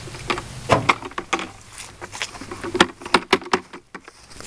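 A person walking on grass: irregular footsteps with short crunching taps, a brief run of them about three seconds in, then a short quieter stretch near the end.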